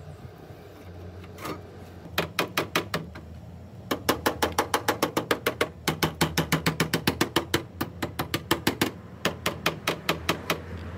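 Small hammer tapping quickly on a curved sheet-steel repair strip fitted over a van's rear wheel arch, seating it on the arch edge. About six sharp metallic taps a second, in runs broken by short pauses.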